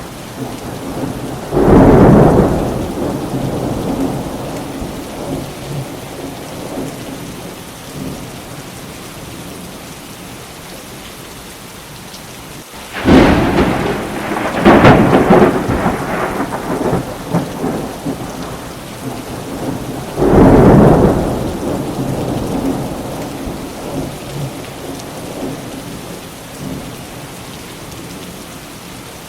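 Steady rain falling, with three peals of thunder: one about two seconds in, a sharper one with several cracks around the middle, and another a few seconds later. Each peal fades out in a long rumble.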